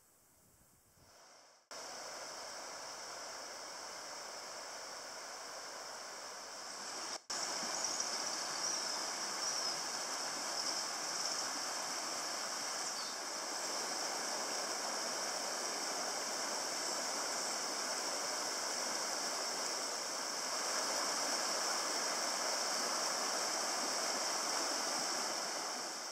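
Shallow woodland stream rushing over stones, a steady rush of water. It comes in suddenly about two seconds in and is louder after a cut about seven seconds in.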